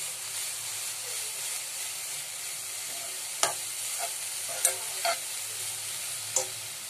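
A steel spoon stirring and scraping a coconut-and-jaggery filling in a hot nonstick pan, over a steady sizzle, with four sharp clicks of the spoon against the pan in the second half.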